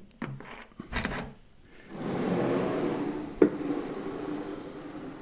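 Table-saw sliding table running on linear bearings, pushed in along its rail: a steady rolling noise with a faint hum, with a knock about a second in and one sharp knock partway through.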